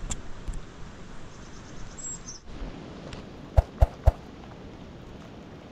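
Steady outdoor wind noise with a short run of high bird chirps about a second in. Near the end come three sharp clicks in quick succession, the loudest sounds here.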